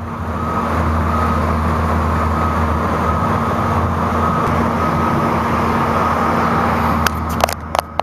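Steady mechanical drone with a low hum and a faint high whine, typical of a running engine or street traffic close by. A few sharp knocks come near the end.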